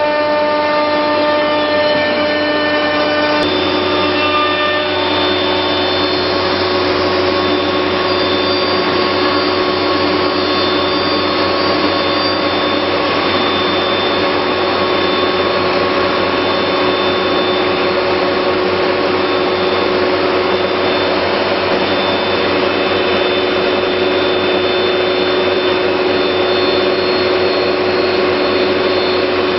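Biesse Rover 23 CNC router running: a loud, steady rushing noise with several steady whining tones over it. About three seconds in the tones change pitch, then hold steady.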